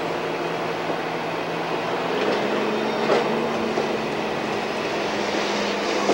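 Train running along the track: a steady rumble with a low engine hum that rises slightly about two seconds in, and a few faint clacks.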